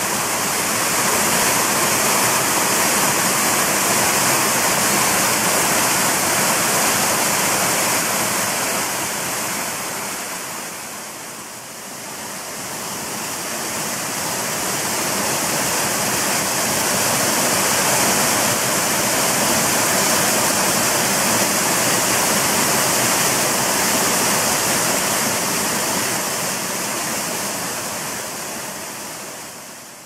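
Waterfall and rocky cascades: water pouring and splashing over rock in a loud, steady rush. The sound dips briefly about a third of the way through, swells back, and fades out near the end.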